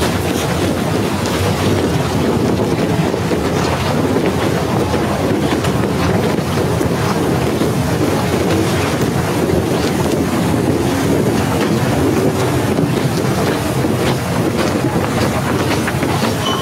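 Snowstorm wind buffeting the microphone: a loud, steady rush, heaviest in the low range.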